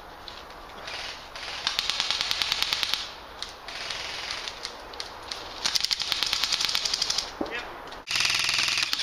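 Airsoft rifle firing two rapid full-auto bursts, each a fast rattle of shots lasting a second or so. Near the end there is a sudden switch to a louder, continuous rattle.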